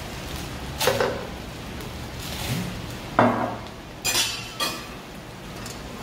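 Metal kitchen utensils clanking against a wok and a steel mixing bowl: four sharp knocks, the loudest about three seconds in, over the steady sizzle of a pancake frying in oil.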